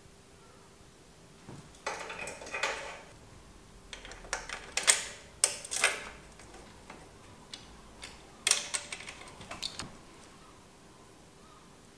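Light metallic clicks and clatter of bike brake parts being handled and fitted: a brake booster and brake-arm hardware knocking against each other, in three short bursts of rattling.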